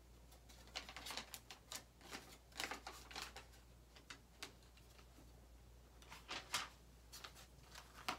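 Paper and pencil being handled: short scratchy, rustling strokes in irregular clusters, about a second in and again near the end, over a faint steady low hum.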